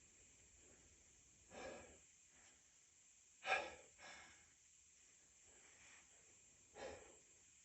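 A man's faint breathing between sneezes: four short breaths, the loudest about halfway through, with near silence between them.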